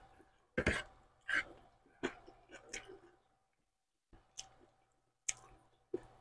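Close-miked chewing of rice and fish, heard as irregular wet mouth clicks and smacks, with a pause of about a second midway.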